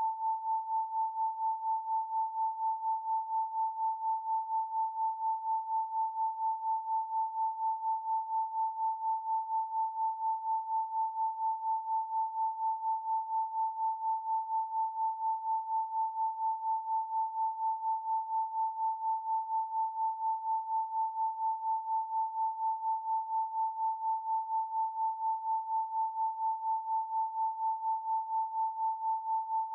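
Steady pure 888 Hz sine tone, a single unchanging pitch, its loudness pulsing evenly about three times a second.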